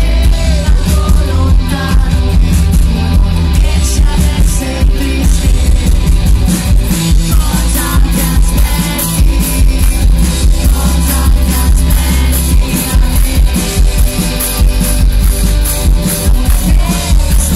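Rock band playing live and loud: distorted electric guitars, bass guitar and a drum kit keeping a steady beat.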